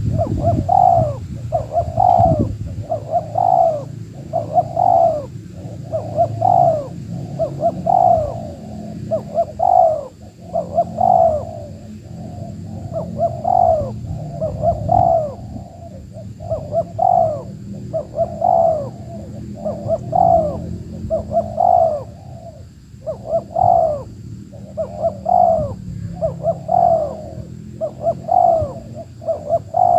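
Spotted dove cooing over and over, short coos at about one a second in long runs with a couple of brief breaks.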